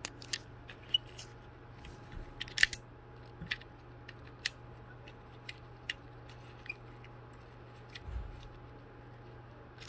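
Scattered sharp plastic clicks and snaps as the halves of a motorcycle key fob's case are pressed and clipped back together, with one louder snap about two and a half seconds in. A faint steady hum runs underneath.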